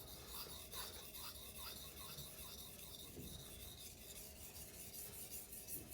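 Knife blade being stroked back and forth on a wet King Deluxe 800-grit Japanese waterstone: a faint, steady rhythm of gritty scraping strokes as the edge is sharpened.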